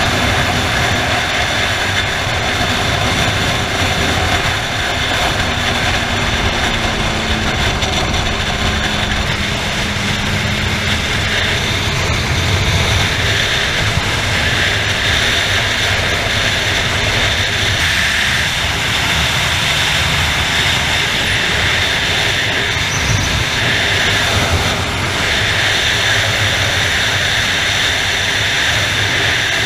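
Steady wind rush over the microphone mixed with a sport motorcycle's engine and tyre noise at highway cruising speed.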